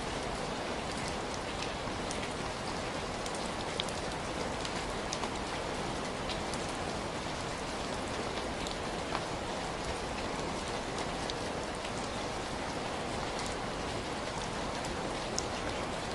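Heavy rain falling steadily, a dense even hiss with many individual drops ticking sharply on a surface.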